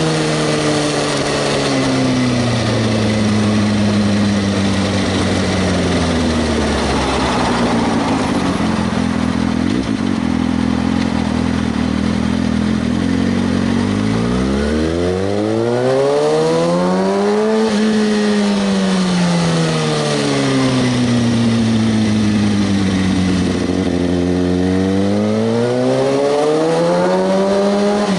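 Kawasaki ZX-6R 636 inline-four engine under way. Its pitch eases down over the first several seconds and holds low, then climbs steeply about halfway through, drops away, and climbs again near the end as the throttle is rolled on and off. A steady rushing noise runs underneath.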